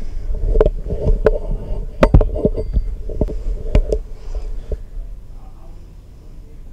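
A string of sharp clicks and knocks from handling painting things: a fine paintbrush being dipped and tapped in a paint pot while the painter works. The clicks stop about five seconds in.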